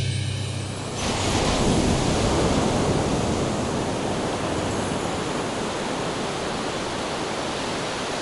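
Steady rushing noise with no tone or beat. It comes in abruptly about a second in, as the last of the music dies away, and eases off slightly over the following seconds.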